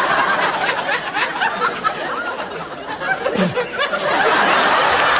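Studio audience laughing, the laughter growing louder and fuller about four seconds in.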